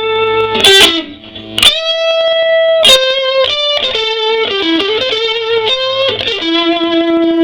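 Electric guitar, a 1983 Fender Stratocaster on its neck pickup, played through a 1956 Fender Princeton tweed amp set about halfway up, where it starts to break up. It plays single-note phrases with several held notes, some with vibrato.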